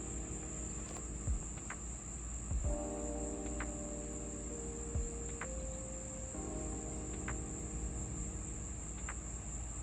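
A steady high-pitched insect chorus of crickets. Lower steady tones come and go in stretches of a few seconds, with a few faint clicks.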